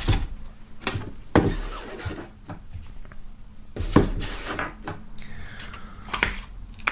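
Handling noise from a clear plastic box and its packaging being moved about on a wooden table: several separate knocks and clatters, and a short squeak that falls in pitch about five seconds in.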